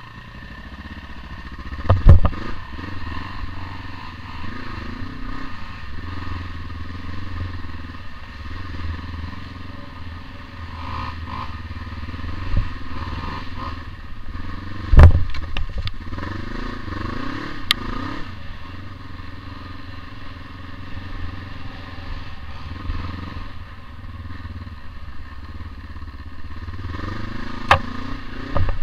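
Kawasaki KLE500's parallel-twin engine running as the bike rides, with the revs rising and falling. Three loud knocks come through: about two seconds in, about halfway through and near the end.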